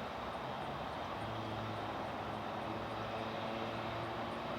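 Jet airliner engines running: a steady rush of engine noise with a low hum that strengthens about a second in.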